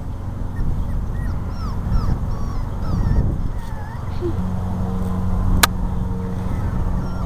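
Dachshund puppies whimpering: many short, high, squeaky whines over a steady low rumble, with one sharp click a little past halfway.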